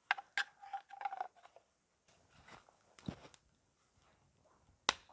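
Small handling noises from a person moving: a few sharp clicks and crunches, with a short squeak about half a second in, then scattered clicks in the middle and one sharp click near the end.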